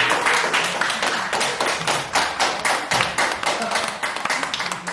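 Audience clapping: many separate hand claps, irregular and overlapping, easing off slightly toward the end.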